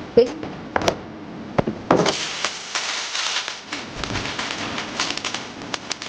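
Groceries and drinks being handled and put into a refrigerator: scattered knocks and taps, with a stretch of packaging rustle about two seconds in.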